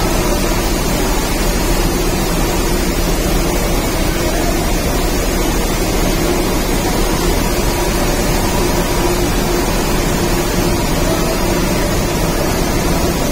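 Steady din of a running rice mill's machinery: a dense, even noise with faint hum tones underneath.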